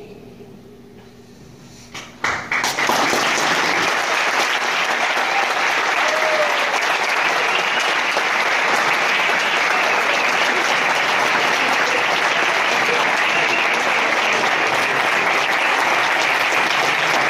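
The faint tail of the sound sculpture's last notes fades out. After a few sharp claps about two seconds in, the audience breaks into applause that goes on steadily.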